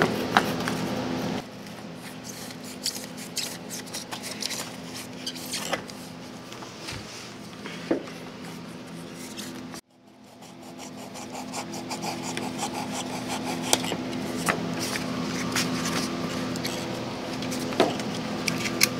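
Hobby knife blade slicing and scraping through closed-cell Minicell foam in short scratchy strokes, over a steady low hum. The sound cuts out abruptly about halfway through and fades back in.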